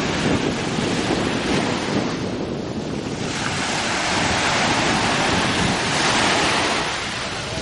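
Small sea waves breaking and washing up a sandy shore at the water's edge. The rush of surf swells from about three seconds in and is loudest around six seconds, as a wave breaks close by. Wind rumbles on the microphone.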